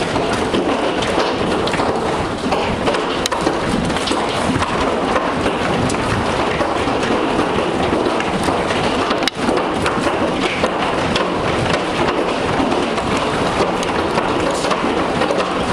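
Hail storm: hailstones and rain pelting down in a dense, steady clatter of countless small impacts.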